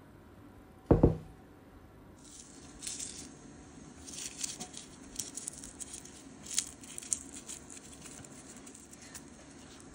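A single loud thump about a second in as a bowl is set down on a wooden table. Then a long run of crisp crackling and pattering as dried rose petals are crumbled between the fingers and sprinkled over a bowl of sweets.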